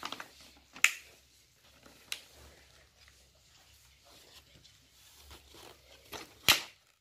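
Paper wrapping being pulled and torn off a package: soft rustling with a few sharp crackles, the loudest near the end.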